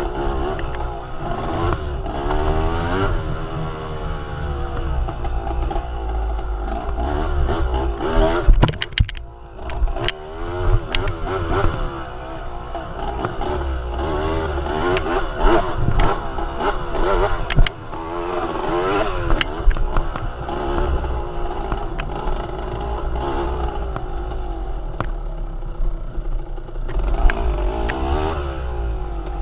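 A motor vehicle's engine running under a steady low rumble, its pitch repeatedly rising and falling as the revs change, with rattles and clicks throughout.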